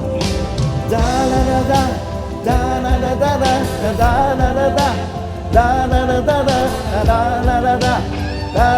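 A voice singing over a band backing track with a steady drum beat; the singing comes in about a second in.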